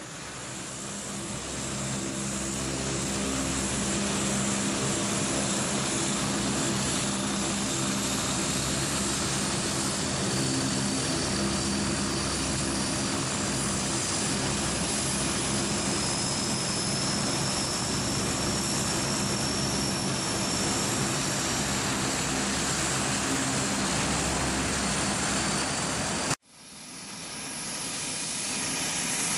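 Aircraft engines running: a steady drone with a thin high whine that rises slowly. It cuts off abruptly about 26 seconds in and fades back in.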